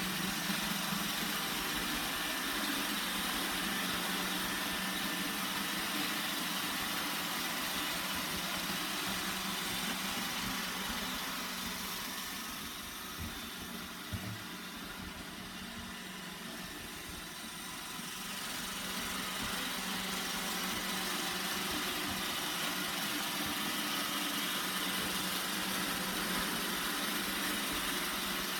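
Roomba 960 robot vacuum running, a steady whir with a low hum. It gets quieter for several seconds in the middle, with a faint knock, then comes back up.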